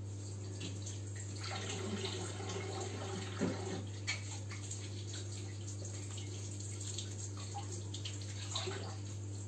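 Faint water running from a tap, over a steady low hum, with a single soft knock about three and a half seconds in.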